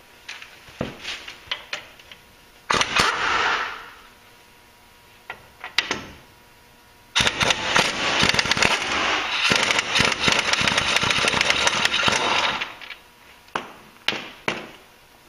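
Impact wrench hammering the 21 mm caliper bracket bolts loose: a short burst about three seconds in, then a longer run of about five seconds. Light clicks and knocks come before and after.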